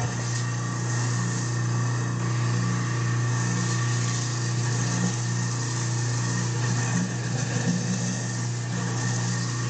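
Kitchen sink garbage disposal switched on and running with a steady motor hum, grinding food scraps, while water from the sink sprayer runs into the drain.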